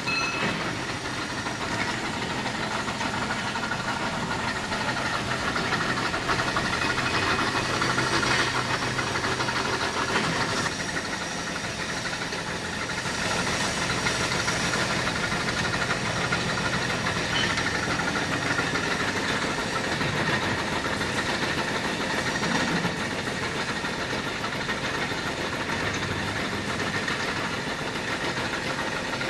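Steady running noise of factory machinery: a continuous mechanical hum with a low drone that shifts about ten seconds in.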